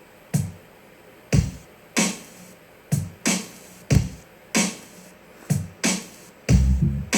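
Hip-hop drum-machine beat from a phone beat-maker app (Sound Camp's 'real hip hop' preset). Sharp kick and snare hits land roughly every half second to second, with a deeper, fuller bass hit coming in near the end.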